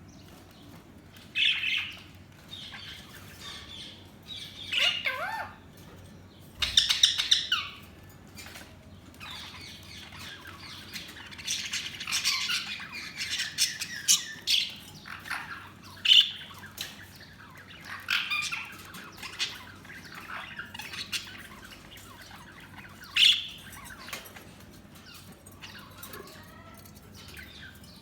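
Budgerigars chirping and squawking in short, scattered calls. A louder run of rapid chattering comes about a quarter of the way in, and a busier stretch of warbling chatter comes around the middle.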